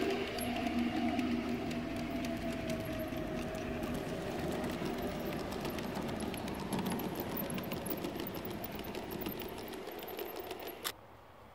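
Large-scale garden-railway model train running past on outdoor track: rapid, even clicking of wheels over rail joints over a steady running rattle. The clicking fades as the train moves off and cuts off with a sharp click near the end.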